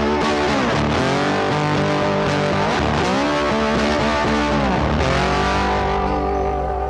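Instrumental background music, its melody bending up and down in pitch, with a steady low bass note coming in about five seconds in.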